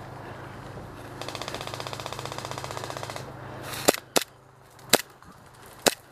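Airsoft electric rifle firing a full-auto burst of about two seconds, a rapid even rattle of roughly ten shots a second, followed by four sharp separate cracks.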